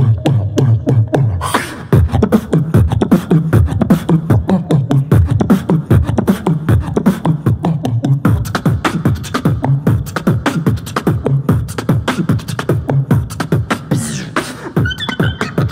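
Live beatboxing into a handheld microphone: a fast beat of kick, snare and hi-hat sounds made by mouth, with a hummed bass line underneath. A high held tone comes in near the end.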